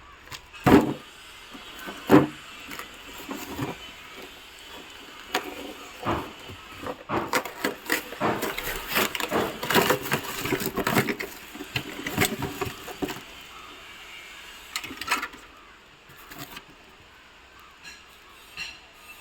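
Cardboard box and packaging being handled and opened: two sharp knocks near the start, then a long stretch of crackling and rustling, and a few scattered clicks near the end.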